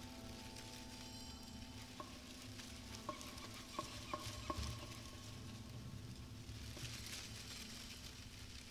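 Faint crackling hiss over a steady low hum, with the last held chord of the band ringing away in the first second or so and a handful of small clicks about two to four and a half seconds in.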